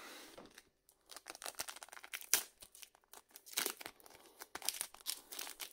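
A trading card booster pack's wrapper being torn open and crinkled in the hands: irregular crackling, tearing rustles that start about a second in.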